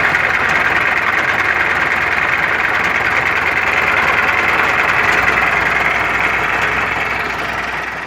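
MTZ-80 tractor's four-cylinder D-240 diesel engine running at idle with a knock from the worn intermediate driveline support; the noise fades out near the end as the engine is shut off.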